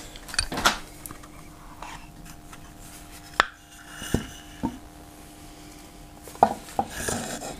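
Scattered knocks and clinks of metal being handled as a milling vise is shifted and turned on the mill table, the sharpest knock about halfway through. A faint steady hum runs underneath.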